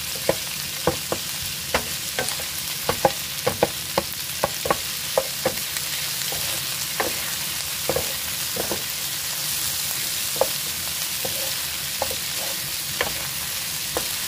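Squid, onion and red chili stir-frying over high heat in an oiled frying pan: a steady sizzle with irregular clicks and scrapes of a utensil against the pan, thicker in the first half.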